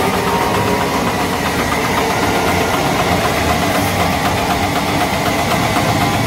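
Motor-driven multipurpose grain mill running steadily under load while rice is poured into its hopper and ground.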